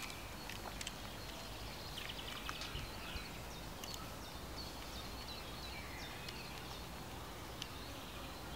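Outdoor ambience: a steady low background noise with scattered faint bird chirps.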